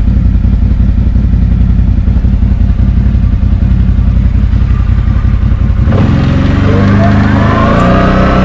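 CFMoto X8 quad's V-twin engine idling steadily, then, about six seconds in, revving up with a rising whine as the quad pulls away.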